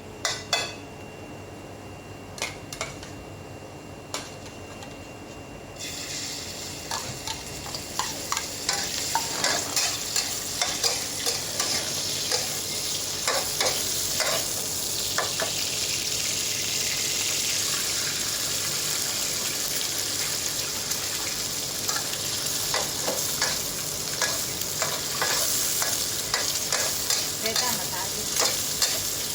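Oyster-and-egg batter frying in oil on a hot pan, sizzling loudly from about six seconds in, with frequent quick scrapes and knocks of a spatula against the pan.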